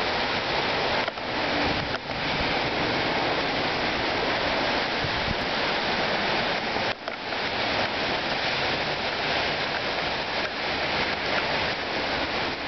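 Heavy downpour in a rainstorm, the rain coming down fast in a steady, dense hiss.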